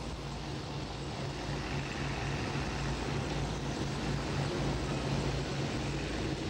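River steamboat under way: a steady rushing noise of the boat's run through the water, with an even, fast low pulsing from its engine underneath.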